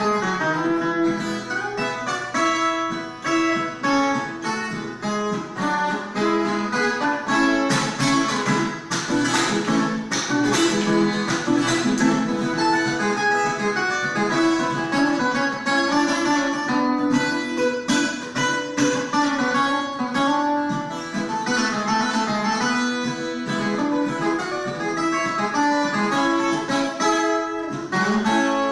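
Viola caipira, the Brazilian ten-string folk guitar, played as a steady stream of quick plucked notes.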